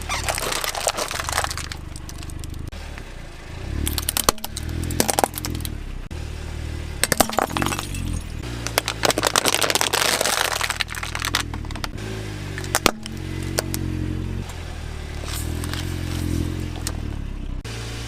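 Objects cracking and crunching as they are crushed under a car tyre, in several bursts with a sharp snap about two-thirds of the way through, over background music.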